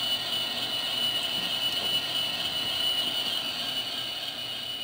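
Digitrax SFX004 sound decoder playing custom EMD 710 diesel prime-mover idle sounds through a 1-inch speaker in an HO-scale Athearn SD70ACe model locomotive: a steady running sound with a thin high whine. It fades away near the end.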